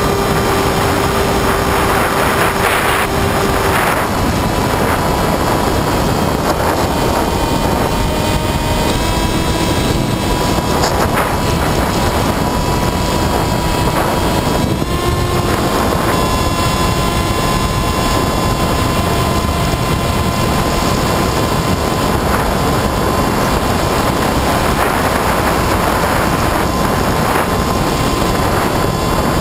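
Electric brushless outrunner motor (Himax 3516-1350) turning an APC 9x6e propeller on a Skywalker FPV plane in flight, picked up by a camera on the plane: a steady motor whine under loud wind rush on the microphone. The whine steps slightly higher about halfway through.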